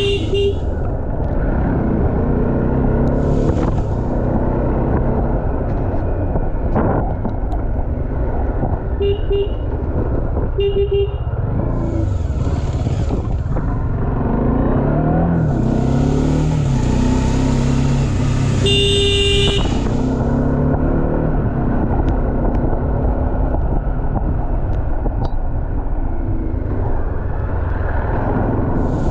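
Bajaj Dominar 400 single-cylinder motorcycle engine running in town traffic, its note rising and falling with the throttle, with swells of wind rush. A vehicle horn gives a couple of short double beeps about a third of the way in and one longer beep about two thirds through.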